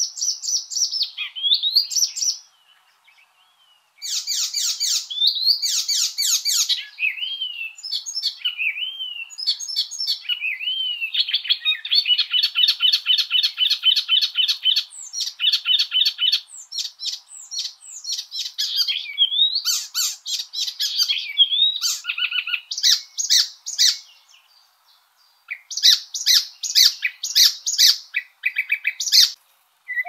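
Songbird song: a run of varied high whistled phrases, slurred notes and chirps, with a long, fast trill of repeated notes in the middle and two short pauses, one early and one near the end.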